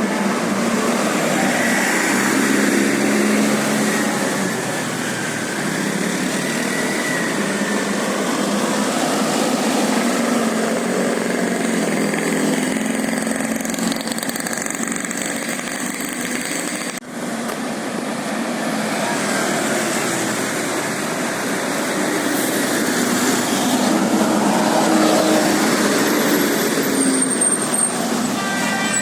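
Roadside traffic noise: motor vehicles running past with steady engine and tyre noise, and a brief break about two-thirds of the way through.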